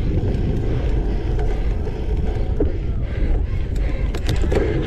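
Wind buffeting the microphone over the low rumble of a cyclocross bike's tyres on a dirt course, with a few sharp clicks and rattles near the end.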